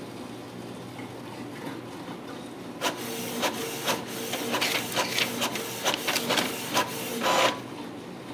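Canon inkjet printer printing a page: after about three seconds of quiet, a quick run of short whirring print-head passes and clicks as the sheet feeds, dying away shortly before the end.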